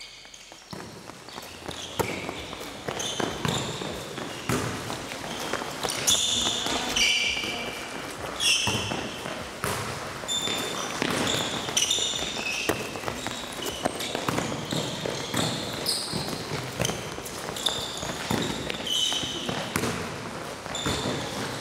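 Handball players' indoor court shoes squeaking in many short, high chirps on a sports-hall floor as they sprint and cut, with footsteps and the handball thumping as it is bounced and caught.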